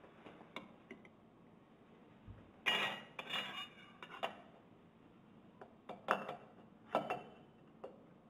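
Stainless steel parts of a GEA Hilge CONTRA Bloc centrifugal pump clinking and knocking together as the casing rings and impeller are fitted by hand over the shaft and tie rods: a cluster of clinks about three seconds in, then single knocks near six, seven and eight seconds.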